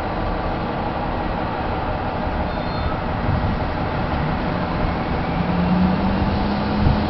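City bus (2011 Nova Bus LFS) idling at a stop, its engine giving a steady rumble. From about four seconds in, a low hum rises in pitch and holds, then cuts off with a brief thump near the end.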